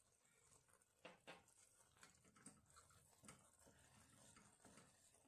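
Faint stirring of wet noodles with a wooden spatula in a nonstick pan: a soft rustle with a few light knocks of the spatula against the pan, the first about a second in.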